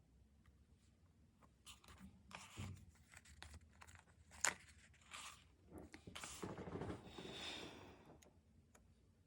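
Stickers and paper being handled and peeled for diary decorating: scattered small taps and peels, one sharp tap about halfway, and a longer peeling rustle a little after it.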